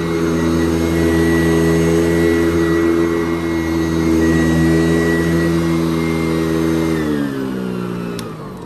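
Sanitaire SC889B upright vacuum cleaner running steadily, then switched off about seven seconds in, its motor winding down with a falling pitch.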